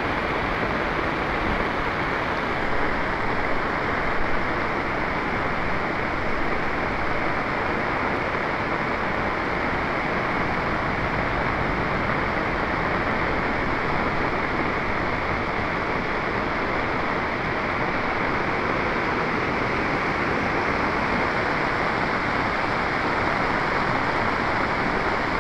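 Muddy floodwater rushing in a swollen torrent, a steady, even rushing noise that hardly varies.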